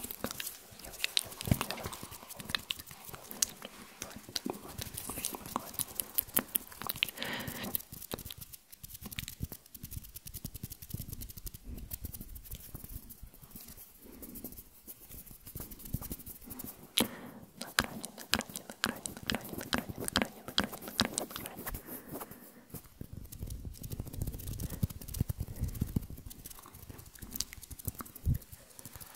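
Close-miked ASMR mouth and hand sounds: a dense, irregular patter of soft wet clicks and crackles as fingers move near the microphone, with brief quieter spells.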